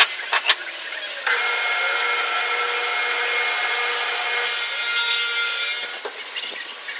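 Table saw with a red blade cutting through a wooden board, a loud steady cut that starts about a second in and fades out about a second before the end. A couple of short knocks come first as the board is set on the saw table.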